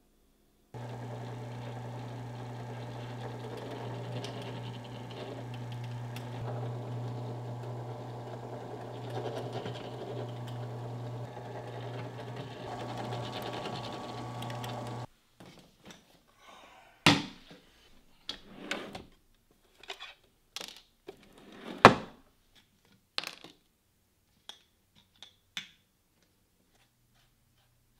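Benchtop drill press motor running with a steady low hum while its bit goes through the stacked leather edge of a sheath, stopping abruptly about halfway. After that, a scattering of sharp knocks and clicks, the loudest two about two and seven seconds after the motor stops.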